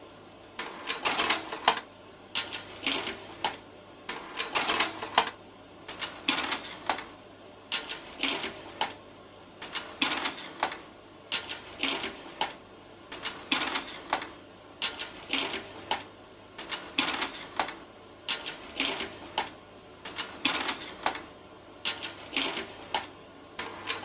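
Rhythmic mechanical clicking: a short cluster of sharp clicks repeating steadily about once a second.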